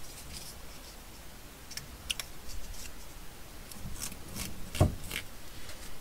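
Paper being folded and handled by hand on a tabletop: light rustles and scattered small clicks, with one louder knock a little before the end.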